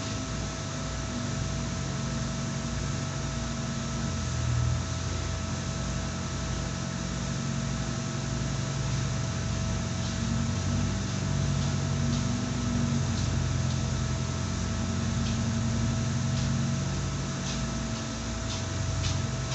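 A machine running steadily with a constant hum, an uneven low rumble underneath and a few faint clicks near the end.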